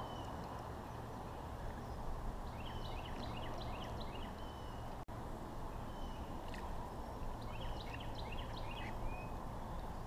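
A songbird singing twice, each time a quick phrase of chirps and slurred whistles, over a steady rushing background. The sound cuts out for an instant about halfway through.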